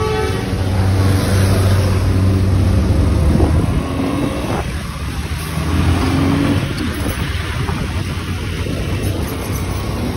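Road traffic: a motor vehicle's engine running with road noise, a steady low drone that eases off after about four and a half seconds.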